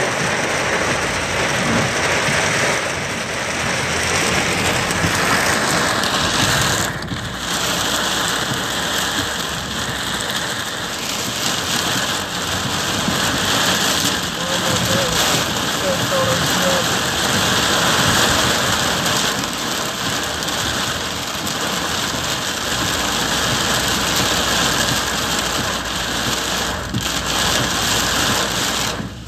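Torrential rain pouring down on a car's roof and windscreen, heard from inside the car: a loud, dense, steady hiss that eases briefly about seven seconds in.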